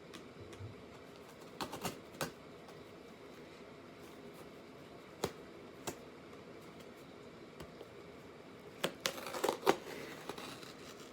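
A package being opened by hand: scattered rustles, crinkles and light taps of packaging, with a louder flurry of handling a little before the end.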